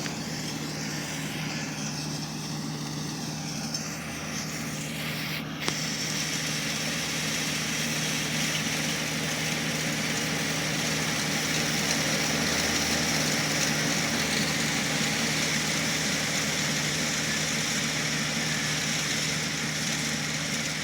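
Kubota R1-301 combine harvester running steadily with a continuous engine drone. There is a short click about five and a half seconds in, after which the sound grows fuller and a little louder.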